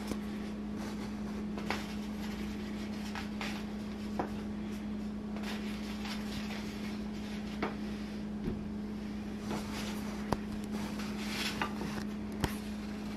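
Quiet kitchen handling sounds: a handful of light clicks and taps as butter is taken from a small bowl and laid on a whole trout in a glass baking dish, over a steady low hum.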